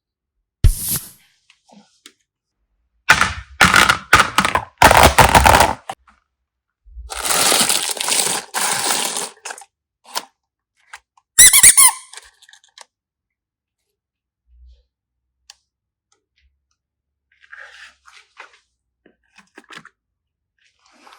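Hands handling slime-craft materials, making irregular bursts of crackling, squishing noise with short gaps between them, then faint scattered clicks in the later part.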